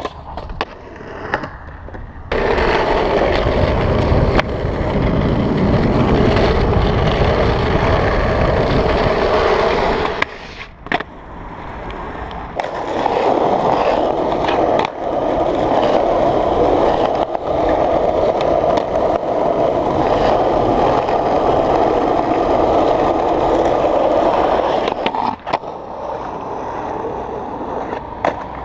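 Skateboard wheels rolling over rough asphalt and concrete, a loud steady rolling noise, with a few sharp knocks of the board. The sound cuts off and changes abruptly several times.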